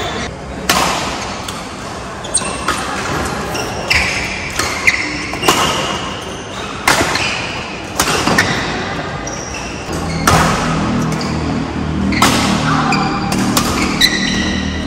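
Badminton rally: sharp racket strikes on the shuttlecock every second or so, ringing in a large hall, with short squeaks of court shoes on the floor between them.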